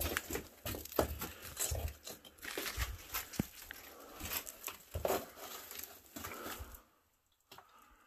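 Clothing rustling and scraping against rock, with irregular scuffs and knocks, as a person squeezes through a narrow rock crevice. It stops about seven seconds in.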